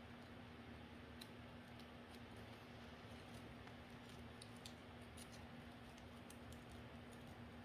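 Near silence: faint, scattered ticks and crinkles of colored origami paper being folded and pressed by hand, over a steady low hum.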